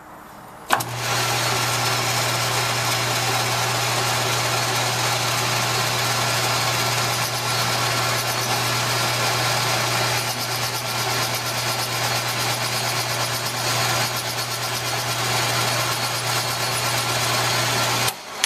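Metal lathe switched on with a click about a second in, then running steadily with a constant low hum while a carbide tool takes a light cut across the tread of a cast iron locomotive wheel; it shuts off just before the end.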